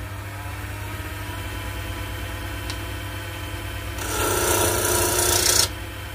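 Draper benchtop wood lathe motor running with a steady hum. About four seconds in, a freshly sharpened turning chisel cuts into the spinning wooden spindle blank with a loud shaving hiss that stops abruptly after about a second and a half.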